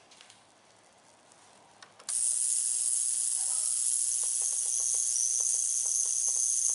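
Ultrasonic cleaner switching on after a couple of button clicks: a loud high hiss starts suddenly about two seconds in and runs steadily, with a steady high whine joining it about three seconds later.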